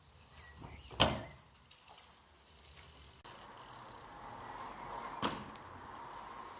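A sharp knock about a second in that rings briefly, then a lighter knock about five seconds in, over faint background noise.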